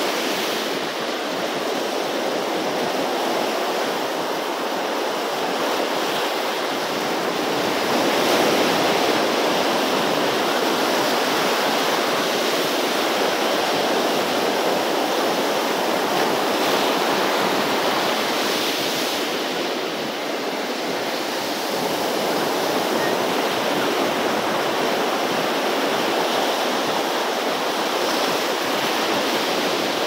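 Heavy sea swell breaking on the beach: a continuous rush of surf that rises and eases slowly, a little louder about eight seconds in, with a brief lull around twenty seconds.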